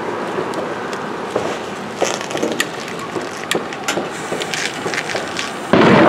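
Scattered sharp crackles and pops from consumer fireworks, then a louder burst lasting under half a second near the end as a lit firework's fuse catches.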